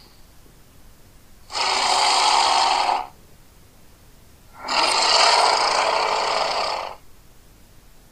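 Custom giant-crocodile monster sound effect: two separate growls, the first about a second and a half long, the second about two seconds, with short pauses between them.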